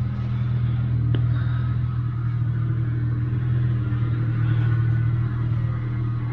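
Holden Commodore's 3.8-litre V6 engine idling steadily, a low even hum. A single faint click comes about a second in.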